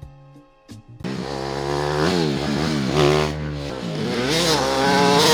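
A small engine revving up and down repeatedly, starting suddenly about a second in, its pitch rising and falling several times.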